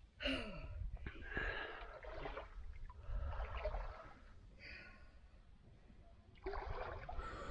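A person gasping and breathing hard in a string of short breaths, over a low rumble of wind on the microphone.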